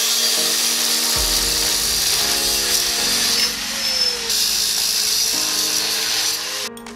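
A power tool running steadily for most of the stretch, cutting off shortly before the end, over background music.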